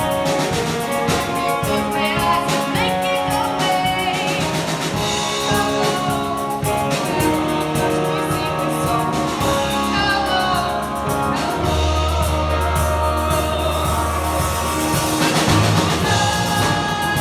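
Rock band playing live: a singer over drum kit and guitars.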